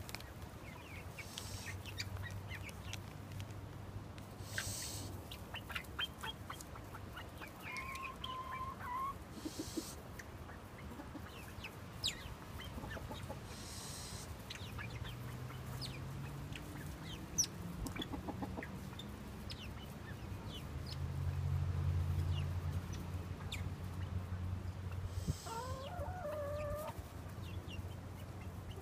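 Yellow golden pheasants clucking in their pen, with two short wavering calls, one about eight seconds in and one near the end. A low steady hum runs underneath and swells a little after twenty seconds.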